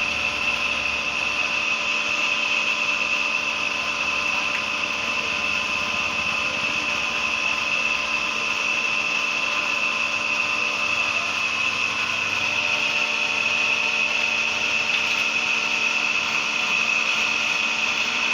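A motor-driven machine running steadily, with a constant high whine and no hammer blows.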